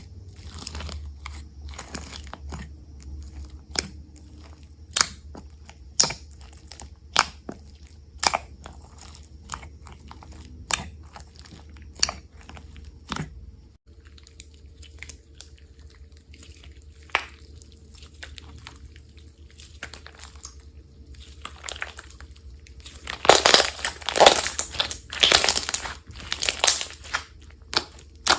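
Slime being worked by hand. It makes sharp pops about once a second, and after a cut there is denser crinkly crackling that grows loud for a few seconds near the end.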